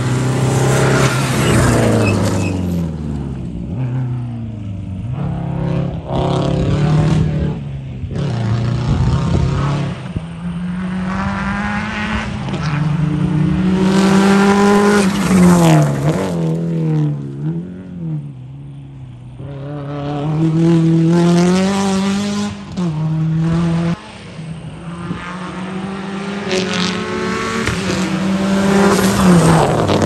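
Subaru Impreza rally cars' flat-four engines racing past one after another on a gravel stage, each revving up through the gears with quick drops in pitch at the shifts. The pitch falls away as each car goes by. About three passes are heard, the loudest near the start, in the middle and near the end.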